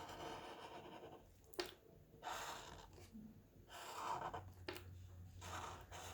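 Faint black Sharpie marker drawing on paper: a run of scratchy strokes, each about a second long, with a couple of small clicks among them.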